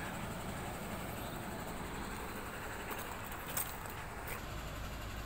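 Heavy diesel truck engine running steadily in a low rumble, with a sharp click about three and a half seconds in.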